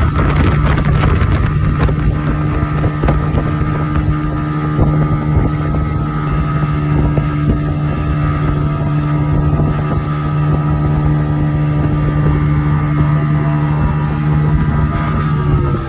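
Motorboat engine running steadily at a constant pitch, with wind on the microphone.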